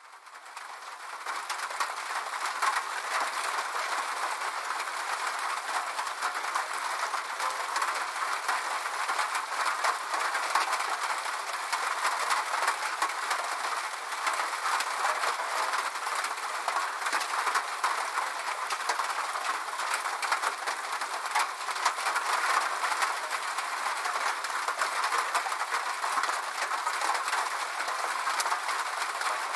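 Rain pattering on a corrugated sheet-metal roof: a dense, steady crackle of countless small drop impacts that fades in over the first second or so.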